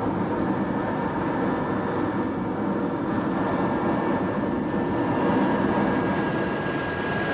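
Helicopter engine and rotor noise heard from inside the cabin, a steady, unbroken drone.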